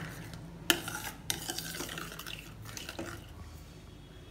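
A steel spoon stirring thick gravy in a steel kadhai, with two sharp clinks of the spoon against the pan about a second apart near the start, then quieter stirring.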